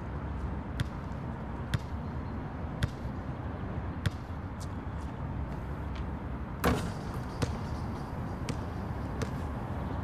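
A basketball bouncing on an outdoor hard court: single sharp bounces roughly a second apart, with one louder knock about two-thirds of the way through. Under them runs a steady hum of outdoor background noise.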